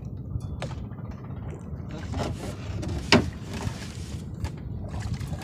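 Small wooden fishing boat at the water: a steady low rumble with water swishing, and one sharp knock about three seconds in.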